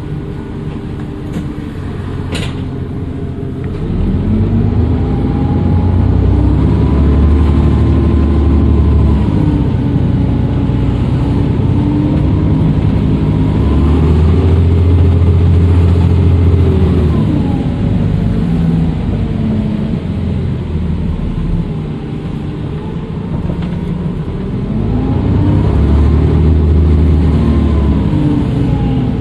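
Dennis Trident II double-decker bus's diesel engine pulling away and easing off three times, its turbocharger whistling, rising and falling in pitch with each pull. A sharp click about two seconds in.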